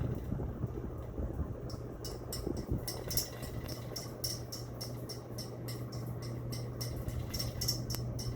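CEC Hugger ceiling fan running on high speed with a steady motor hum. Its light globe rattles against the fan in quick repeated clicks, about three a second, starting a couple of seconds in.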